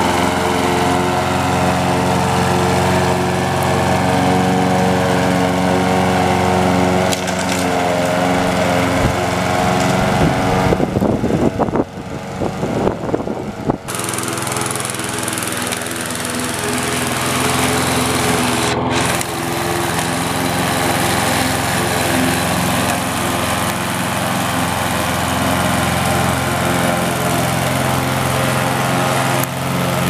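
Petrol lawn mower engine on an old walk-behind mower deck converted to remote control, running steadily at a constant speed as the mower drives across the grass. About eleven seconds in, a few seconds of uneven knocking and rumbling rise over the engine.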